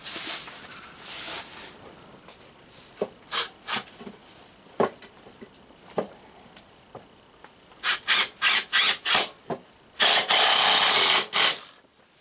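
Ryobi cordless drill-driver driving screws into a wooden frame: several short bursts, then one longer run of about a second and a half near the end. Before that, handling rustle and a few knocks of wood.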